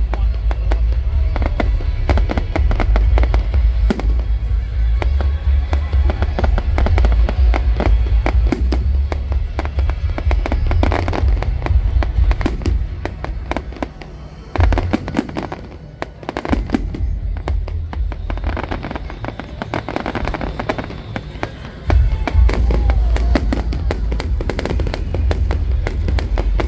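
Fireworks display: a dense barrage of crackling bangs and booms over a deep rumble. It thins out about halfway through, then a loud salvo starts abruptly near the end.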